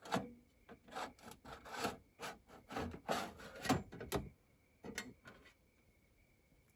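Small metal deflector shield on a Dometic RV propane fridge being worked loose and pulled off by hand: a quick series of scrapes, rubs and clicks for about five seconds, then it goes quiet.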